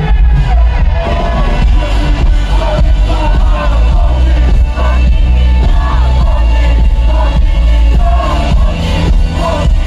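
Live hip-hop concert music over a festival PA with a heavy, steady bass, and a voice singing over it. A crowd can be heard along with the music.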